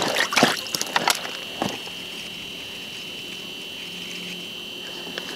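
Several short knocks and rustles in the first second and a half as an ice-fishing rod and reel are handled while a small crappie is brought up. After that only a steady high-pitched whine remains.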